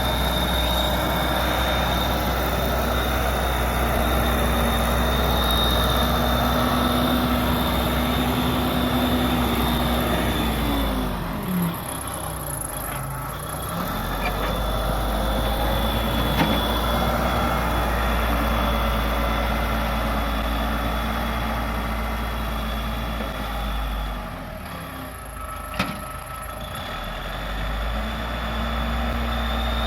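Case 580 Super L backhoe loader's diesel engine running hard, its revs dropping and then climbing back twice. There is a short clank or two.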